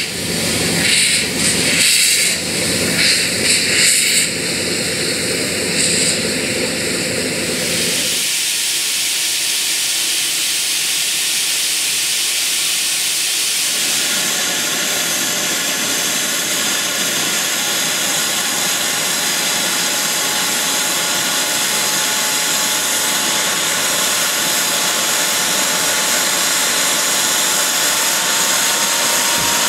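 Steam locomotives hissing steam while being raised in steam: gusty and uneven for the first several seconds, then a steady, loud hiss of steam blowing from Bagnall 0-6-0 saddle tank Florence No. 2.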